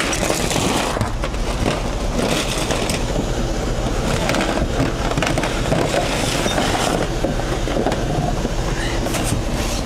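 Scania 143M truck's V8 diesel running steadily while driving the loader crane, with irregular rough scraping and knocking noises from the load over the engine hum.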